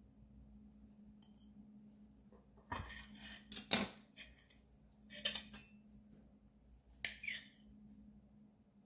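Metal cutlery clinking against a ceramic plate as a slice of cake is served onto it and spooned, in three short clusters of clinks a couple of seconds apart. A faint steady hum runs underneath.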